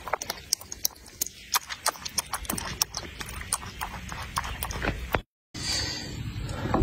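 Dog lapping water, a quick irregular run of wet clicks, cut off briefly about five seconds in.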